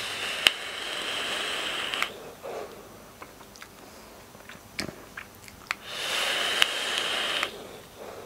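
Two long drags on a rebuildable dripping atomiser fired on a vape mod, each a steady hiss of air and sizzling coils lasting about two seconds. The first comes at the start and the second about six seconds in, with quieter breathing out and a few faint clicks between.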